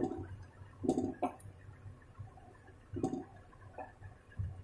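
A metal spoon scooping chicken pieces out of thick korma gravy in a pan: wet squelching and sloshing in a few separate strokes, with light clicks of the spoon against the pan.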